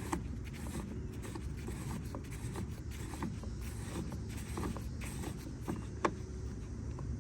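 Scattered light clicks and scrapes of a battery chainsaw being handled and cleaned of sawdust and bar-oil gunk, with one sharper click about six seconds in, over a steady low rumble.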